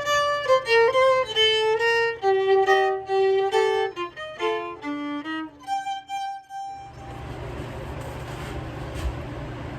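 Solo violin playing a single melodic line of separate notes stepping mostly downward in pitch, stopping abruptly about two-thirds of the way in. A steady, even noise with a low hum then follows.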